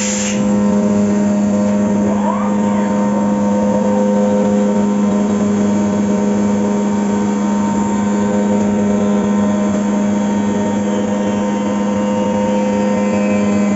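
Fagima Jazz M 5-axis CNC milling machine running while machining a part: a steady mechanical drone with a constant low hum and several steady higher tones, and a brief rising whine about two seconds in.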